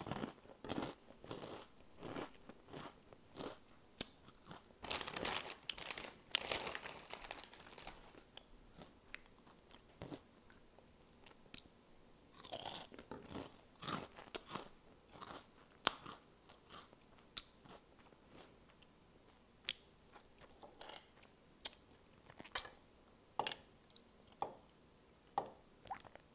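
Crunching and chewing of Flamin' Hot Cheetos close to the microphone, a long run of sharp crisp crunches that is densest a few seconds in.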